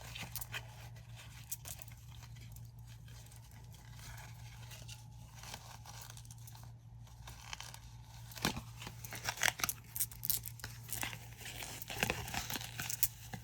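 Crinkling and tearing of a small package being worked open by hand to get at clear quartz pieces. The rustles are sparse at first, then become busier and louder about two-thirds of the way in.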